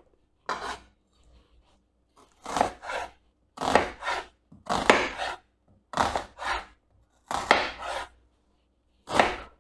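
Kitchen knife cutting a raw onion on a wooden cutting board: about a dozen short cuts, mostly in pairs, roughly a second apart.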